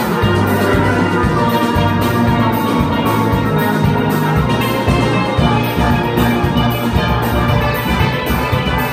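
Steelband ensemble playing a calypso live: tenor, double tenor and cello steel pans over bass pans and a drum kit, with a steady beat.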